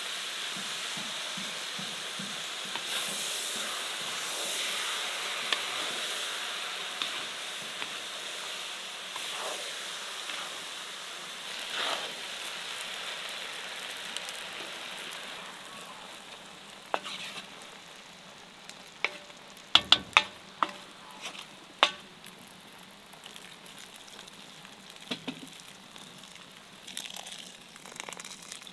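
Rice and meat sizzling in a hot pot while being stirred. The sizzle fades after about fifteen seconds, and then come a few sharp knocks, most of them about twenty seconds in, from the stirring utensil against the pot.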